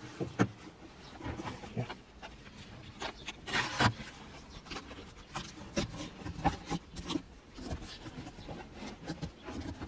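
Hands pressing and rubbing tape onto a ribbed hard plastic suitcase shell, with scattered clicks and rustles and one louder rasping noise about three and a half seconds in.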